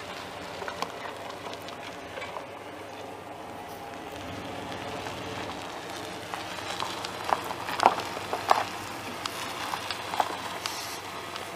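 A pickup's 5.7 L V8 gas engine running steadily, with a few sharp clicks and knocks about seven to nine seconds in.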